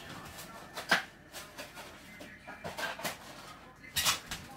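Scattered knocks and clicks of kitchen items being handled and set down, with a sharp click about a second in and a louder clatter near the end.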